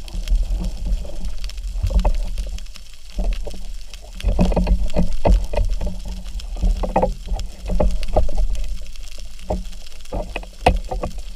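Underwater sound as picked up by a diving camera: a low water rumble with irregular knocks and clicks while a speargun shaft and a speared fish are handled.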